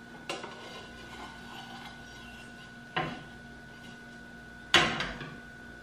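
A slotted skimmer knocking against a frying pan: three sharp knocks, one just after the start, one about three seconds in and the loudest just before five seconds in, over a faint steady hum.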